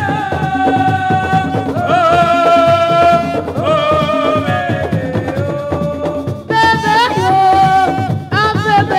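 Music: a busy drum rhythm under a melody of long, wavering held notes, with a short break about two-thirds of the way through.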